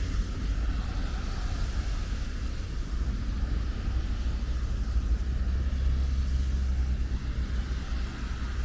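Steady ambience of light rain falling, an even hiss over a constant low rumble.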